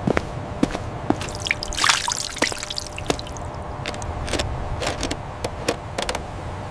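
Water trickling and dripping from a broken water tower, with many separate drips falling at an uneven pace and a heavier splash of water about two seconds in.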